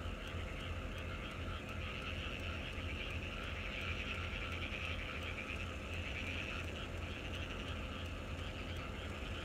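A dense, steady chorus of many frogs calling together, with a low steady hum underneath.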